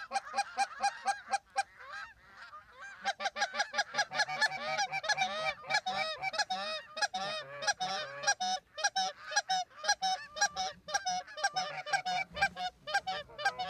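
Geese honking: many rapid overlapping honks, several a second, with a brief lull about two seconds in before the honking resumes and carries on thickly.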